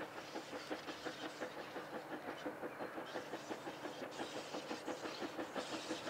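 Great Western Railway steam railmotor No. 93 working steadily, its exhaust beating in a fast, even rhythm of about five chuffs a second.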